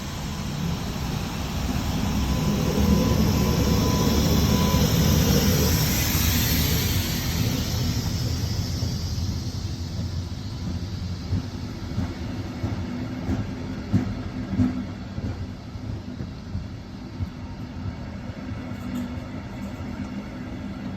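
Train pulling away from the station and rolling past: a low rumble with a high hiss that builds to its loudest about three to six seconds in, then slowly eases off. A few sharp wheel clacks over rail joints come later.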